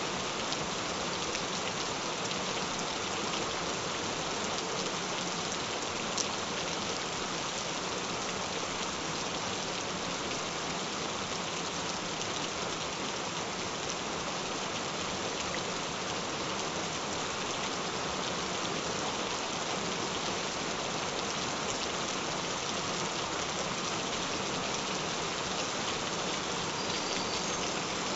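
Gentle, steady rain falling, an even unbroken patter.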